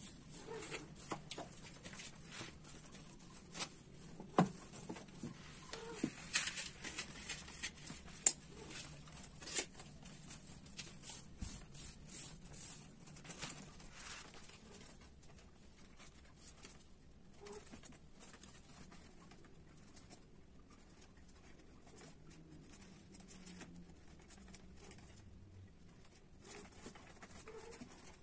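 Two long-haired cats mating on a tiled floor: scattered taps and scuffles of paws and bodies on the tile, busiest in the first ten seconds, with a few short low calls, over a faint steady high hiss.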